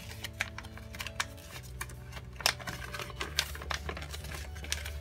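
A folded paper checklist being unfolded and handled: irregular crackles and sharp clicks of paper.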